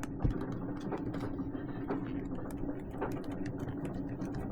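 Irregular small clicks and taps from handling a motorcycle helmet and pressing an adhesive LED light strip onto its shell, over a steady low hum.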